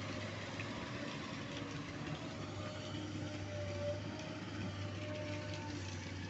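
Excavator diesel engine running steadily with an even hum.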